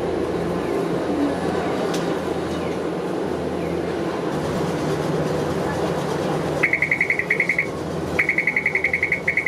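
Hiroshima tram running with a steady rumble, and near the end an electric warning bell ringing in two rapid trills, about a dozen strokes a second.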